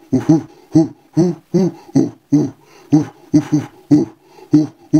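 A voice performing a doggy song made of short, rhythmic sung syllables, about two to three a second, with no clear words.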